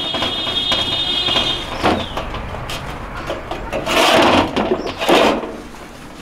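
A stone pot being washed by hand in a metal basin of water: water sloshing and the pot scraping and knocking in the basin, with the loudest splashes about four and five seconds in. A high, steady squeal sounds through the first two seconds.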